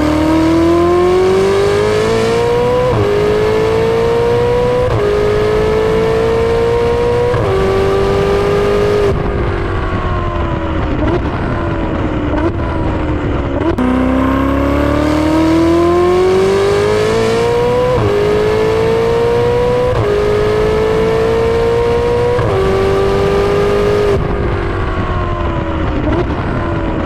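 Ferrari 488 GTB's 3.9-litre twin-turbo V8 accelerating hard on track. The pitch climbs through each gear and drops at each of four quick upshifts. The same run is heard twice.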